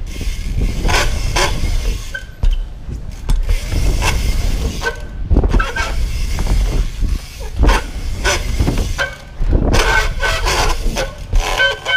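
BMX bike riding a ramp, its tyres rolling over the surface with repeated knocks and rattles from the bike as it drops in and turns. A heavy, uneven rumble of wind buffets the microphone throughout.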